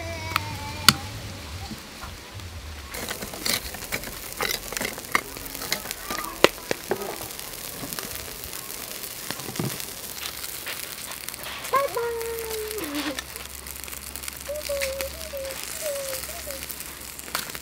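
Scattered sharp clicks and clinks over a light crackle: a metal spoon knocking in a ceramic bowl of dipping sauce near the start, then metal tongs working grilled catfish on a wire grill rack over charcoal.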